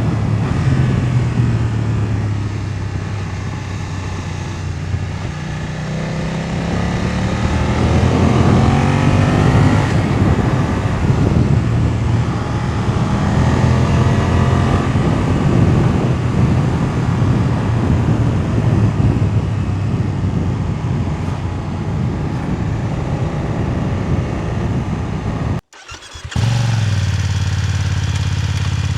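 BMW F900R parallel-twin motorcycle engine under way, its pitch rising as it revs up through the gears, twice. Near the end, after a brief break, the engine runs at a steady note, heard close to the exhaust.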